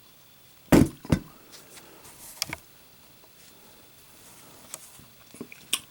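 Zippo lighter dropped onto a hard surface: two sharp knocks less than half a second apart, about a second in, as it lands and bounces, then a few lighter clicks and ticks.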